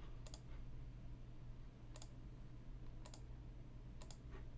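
Four faint, sharp clicks at uneven intervals, over a low steady hum.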